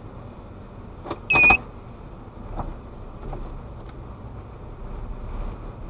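Car cabin noise while driving: a steady low road and engine rumble. About a second and a half in there is one short, loud, high-pitched beep, just after a click, and a few faint light knocks follow.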